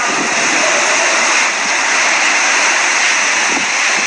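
Steady rushing of wind and rain from Hurricane Irma's outer bands as the downpour begins.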